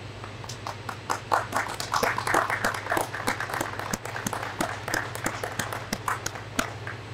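A small group of people clapping in applause. It starts about half a second in, is thickest through the middle and thins out near the end. A steady low hum runs underneath.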